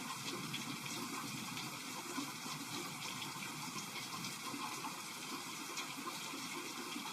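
Heavy rain pouring down steadily in a thunderstorm: an even hiss flecked with many small drop impacts.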